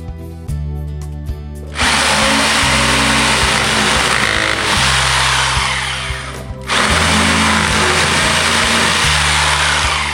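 A power tool running hard in two long runs, stopping briefly about six and a half seconds in, over background music.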